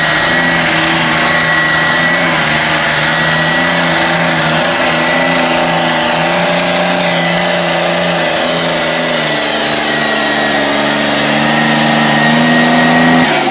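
Green Deutz pulling tractor's engine running flat out under heavy load as it drags the weight sled down the track, with a steady high whine over the engine note. The pitch creeps up a little near the end, then the sound cuts off abruptly.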